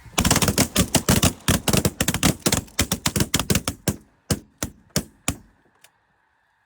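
Volley of shotgun fire from several hunters shooting at snow geese: rapid, overlapping shots for about four seconds, thinning to a few single shots before stopping. Faint calling from the flock continues behind the shooting.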